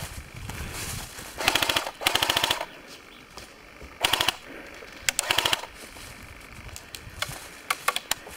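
Airsoft guns firing in rapid full-auto bursts: a long burst, then two short ones, followed by a few single shots near the end.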